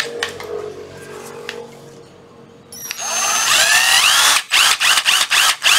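A Ryobi 12V cordless impact driver (BID-1226) is run free with no load, after a few light handling clicks. About three seconds in the motor spins up with a rising whine, then runs at speed, cutting out briefly several times as the trigger is let off and squeezed again.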